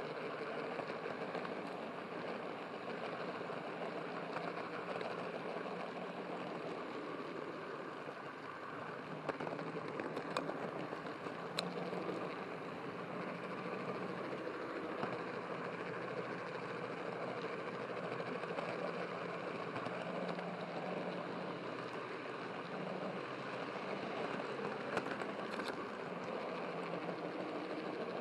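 Model train rolling along its track, a steady rumble and motor hum picked up by a camera riding on a flatbed car, with a few sharp clicks midway and again near the end.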